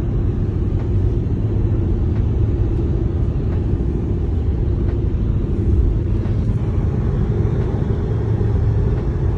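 Steady low rumble of road and engine noise inside a moving car's cabin, driving at highway speed.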